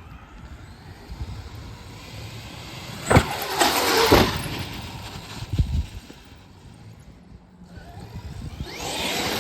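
Traxxas XRT electric RC monster truck driving: its brushless motor whines and its tyres run over the ground, with a few sharp thumps about three and four seconds in and again near six. Near the end the motor whine rises again as it accelerates.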